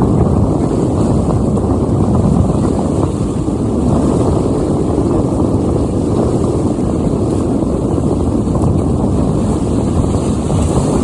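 Strong wind buffeting the microphone offshore: a loud, steady, low rumble with no let-up.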